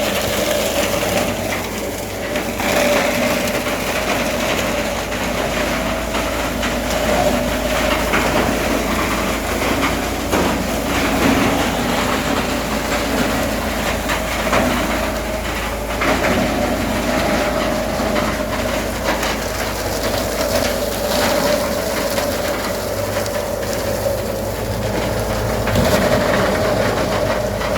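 Coconut husk shredding machine running, with a steady whine over a low hum and irregular clattering knocks.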